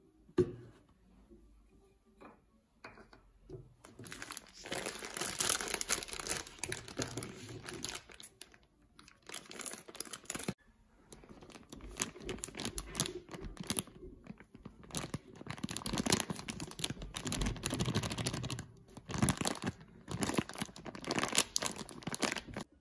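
A sharp click about half a second in, then a plastic pancake-mix bag crinkling and rustling in repeated bursts as it is squeezed and its dry mix poured into a plastic shaker bottle.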